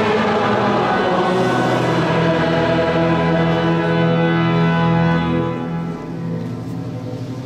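Pipe organ playing sustained chords in a large reverberant church, notes held for seconds; the music drops in volume about five and a half seconds in and goes on more quietly.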